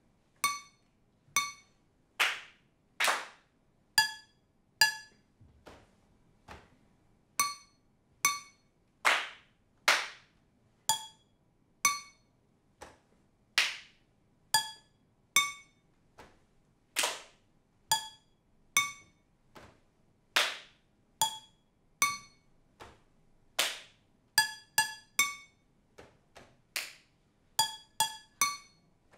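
Hand claps alternating with short, pitched, ringing taps on kitchen utensils struck with a stick. They trade off in small groups in a call-and-response rhythm, with a quicker run of taps near the end.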